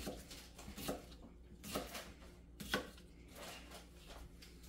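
Kitchen knife slicing red-skinned potatoes into long pieces on a plastic cutting board: separate sharp knocks of the blade on the board about once a second, the loudest nearly three seconds in.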